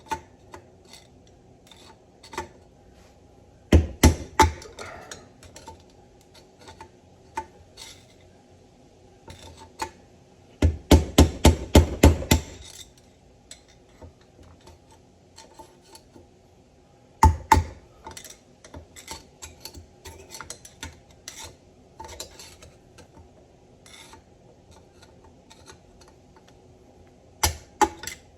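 Steel steering-box parts and hand tools clinking and knocking against each other and the bench, in scattered groups, with a quick run of about six sharp knocks around eleven to twelve seconds in.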